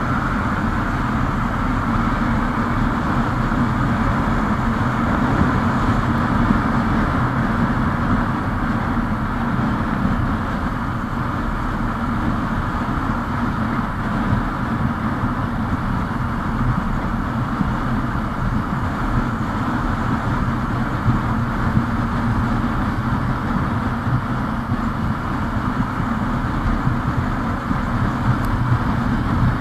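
Hero Super Splendor's single-cylinder engine running steadily at cruising speed, with wind and road noise on a microphone mounted on the moving motorcycle.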